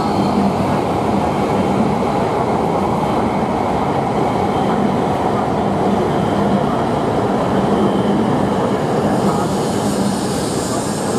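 E5-series Shinkansen bullet train rolling past on the track, with a steady rumble of wheels and running gear under a constant low hum. A higher hiss builds near the end.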